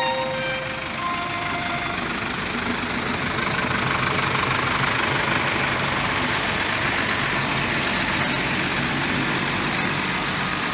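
Several tractor engines running steadily together, a continuous low rumble under an even rushing noise. The tail of violin music fades out in the first second.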